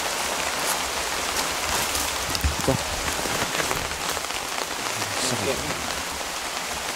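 Steady rain falling on jungle foliage, an even hiss with scattered small pattering clicks.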